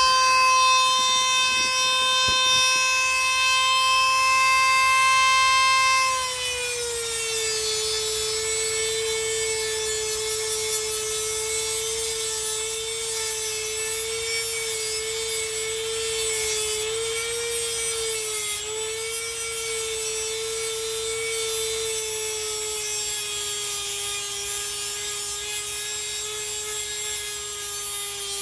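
Electric power tool running with a steady high whine. Its pitch drops about six seconds in and sags a little further near the end as it comes under load.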